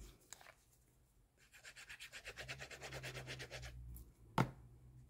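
Paper adhesive being run along the back of a cardstock panel: a rapid, even rasping of many fine strokes lasting about two and a half seconds, then a single sharp click.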